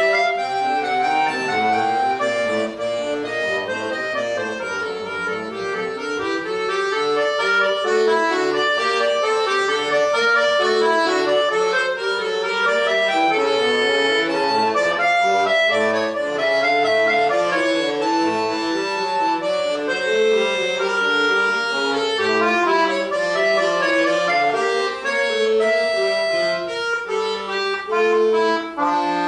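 Solo accordion playing a quick piece in running notes over chords.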